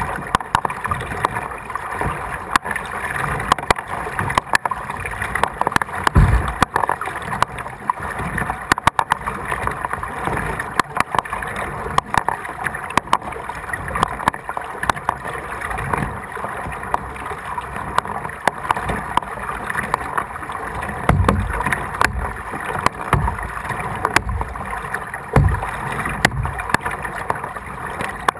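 Kayak paddling through floodwater: paddle strokes splashing and water lapping, with frequent small clicks and knocks and a few low thumps.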